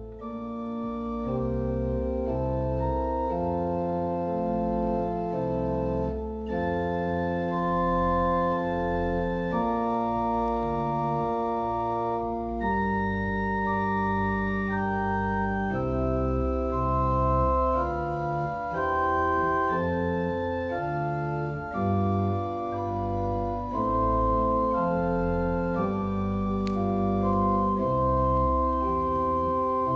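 Pipe organ playing slow, sustained chords over a deep pedal bass, the notes held and changing every second or two.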